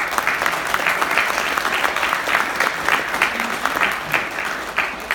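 Audience applauding: a roomful of people clapping steadily, easing off slightly near the end.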